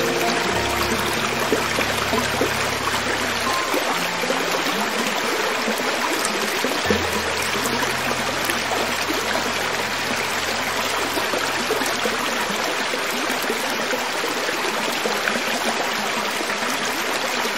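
Creek water flowing over rocks, a steady, even rush, with a few low held tones beneath it.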